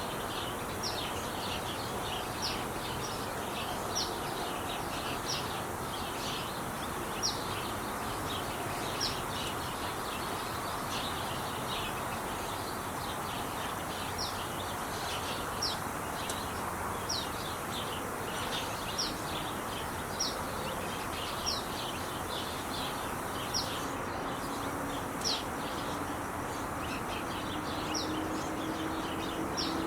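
Steady rush of Interstate 5 freeway traffic, with a bird chirping over it in short high notes every second or so.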